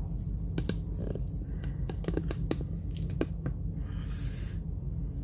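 Fingers tearing apart a hot, crispy oven-roasted chicken wing: a quick run of small crackles and snaps from the crisp skin and parmesan crust, then a short hiss near the end. A steady low hum sits underneath.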